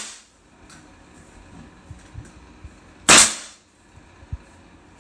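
Pneumatic nail gun on an air hose firing a nail into quarter-round trim: one sharp shot about three seconds in, after the fading end of another shot as the sound begins.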